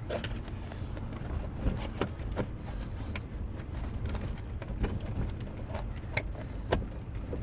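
Irregular light clicks and knocks as a seat and its locking pins are fitted into a Porta-Bote folding dinghy's plastic hull, over a low steady rumble.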